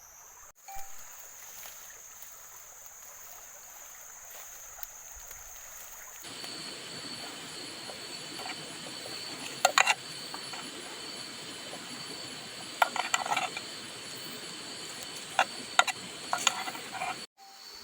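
Steady hiss of rain and water with a constant high-pitched whine over it, growing fuller and louder about six seconds in, and several sharp clicks and knocks in the second half.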